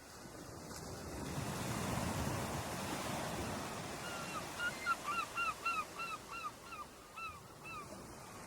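Ocean surf washing in, swelling over the first couple of seconds, and then a bird giving a rapid run of short honking calls, about three a second, for some four seconds over the steady wash of the waves.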